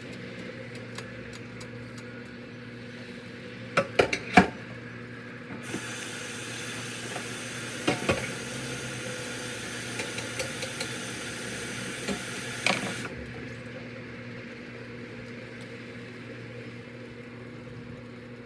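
Kitchen cooking sounds: pots and utensils knock and clatter a few times, and a steady hiss starts suddenly about six seconds in and cuts off about seven seconds later, over a low steady hum.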